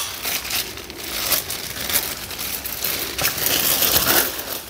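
Clear plastic bag crinkling and rustling with many irregular crackles as it is worked up and pulled off a coffee grinder.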